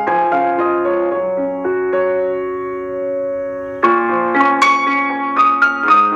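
Background piano music: struck notes that hold and fade through the middle, then a livelier run of new notes about four seconds in.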